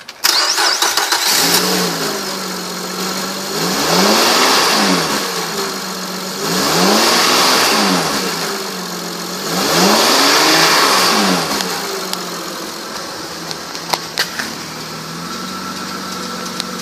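2006 Saturn Vue's V6 engine cranking and catching about a second in, then idling. It is revved three times, each rev rising and falling back to idle, before running at a steady idle.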